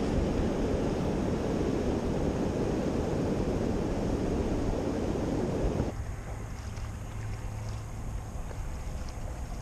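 Rushing river water below a low dam, mixed with wind on the action camera's microphone, as a steady dense noise. About six seconds in it cuts off abruptly to a much quieter river ambience with light wind.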